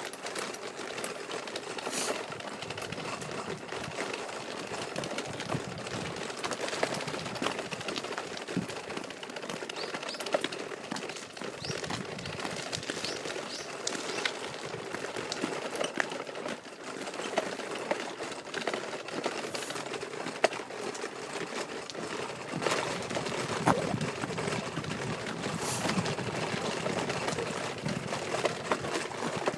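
Pushchair wheels and frame rattling steadily over a rough, bumpy road, with many small clicks and knocks.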